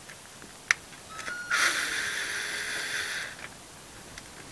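A sharp click, then a cordless drill-driver with a T20 Torx bit runs for about two seconds, backing a screw out, and stops.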